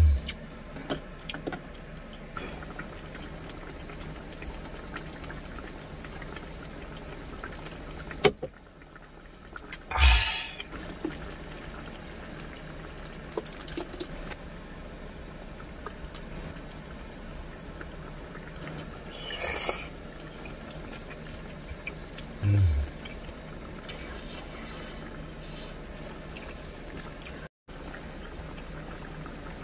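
Water poured in short splashes into stew simmering in a cast-iron skillet, with a steady low background and a few dull knocks.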